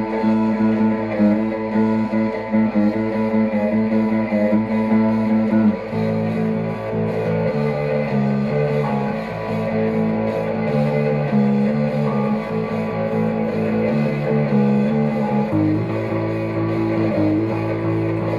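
Punk rock music: strummed electric guitar chords over bass guitar.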